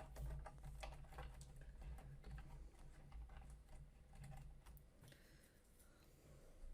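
Faint, irregular small clicks and taps with light rustling as hands handle and untwist electrical cables and plastic printer parts.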